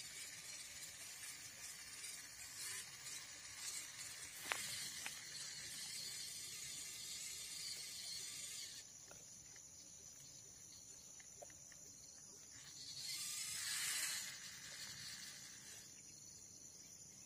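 Outdoor ambience of insects buzzing steadily in a high pitch. There is a single sharp click about four and a half seconds in, and a hiss that swells and fades near the end.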